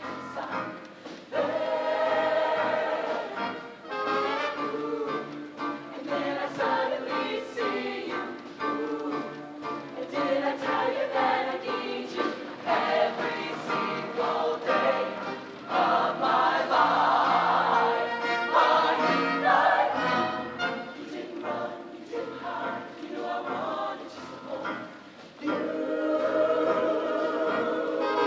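Mixed-voice high school show choir singing, loudest in the middle stretch.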